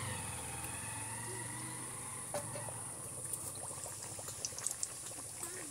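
Hot oil sizzling and bubbling steadily in a wok as dough deep-fries into nan puri, with a few faint clicks.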